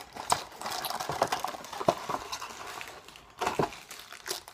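A small cardboard toy blind box being opened by hand: irregular clicks, crinkles and rustles of the packaging.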